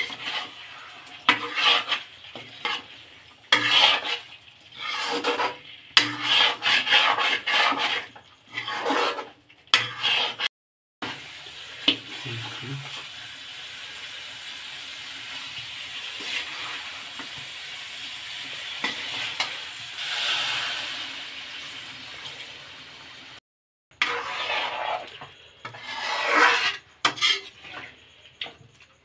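Metal ladle scraping and stirring chicken pieces in thick masala in a steel kadai, in irregular bursts. Through the middle the stirring stops and a steady sizzling hiss carries on. Near the end the scraping stirs start again in a thinner, watery gravy.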